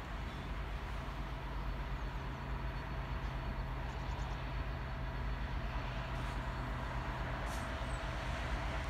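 Class 66 diesel-electric freight locomotive's two-stroke V12 diesel engine droning steadily in the distance as the train approaches, growing slowly louder.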